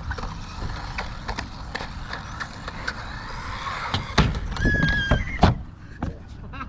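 Arrma Typhon Grom mini RC buggy running on concrete, its electric motor and tyres making a continuous noisy whir scattered with clicks and knocks. A cluster of loud knocks about four to five and a half seconds in marks it slamming into obstacles, with a brief high whine among them.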